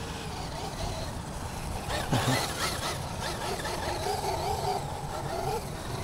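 Brushless electric motor of a Traxxas UDR radio-controlled truck whining as it drives, its pitch rising and falling with the throttle over a low rumble, with a loud thump about two seconds in.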